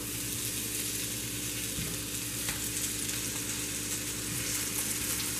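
Halved yellow onions sizzling face down in hot olive oil in a pan, a steady frying hiss as their cut faces begin to sear.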